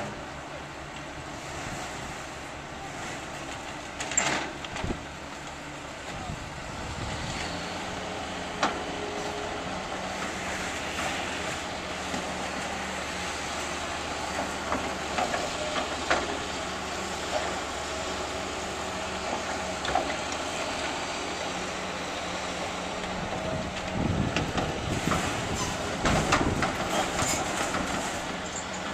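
Heavy demolition machinery running steadily, with scattered clanks and knocks as broken concrete slabs are handled, and a louder stretch of clattering near the end.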